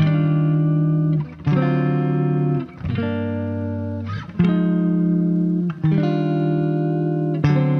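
Background music: sustained guitar chords, a new chord about every one and a half seconds.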